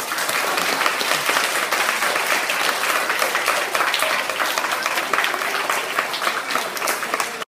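Audience of schoolchildren applauding: dense clapping that starts suddenly and cuts off abruptly near the end.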